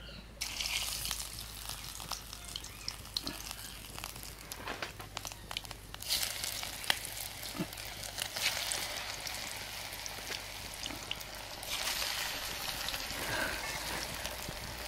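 Sliced taro-leaf rolls frying in hot mustard oil in a wok, a sizzling hiss with crackling spatter. The frying gets louder about six seconds in and again near twelve seconds.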